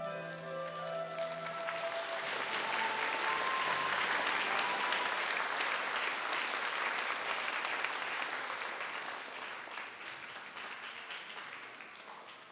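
Background music with held notes ends about a second in, and an audience applauds. The applause swells, then slowly dies away near the end.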